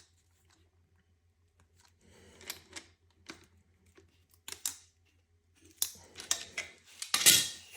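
Light clicks and rattles of fuel injectors and a fuel rail being handled and pushed into place, with a louder rustle near the end.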